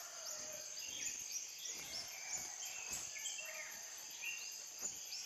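Night-time insect chorus: a steady high shrill with many short chirps overlapping, and a few faint knocks.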